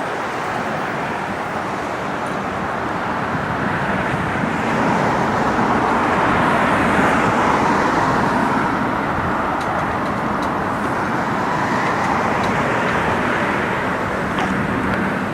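Military jet aircraft engine noise: a steady rushing that swells and eases slowly, loudest about midway and again a few seconds later.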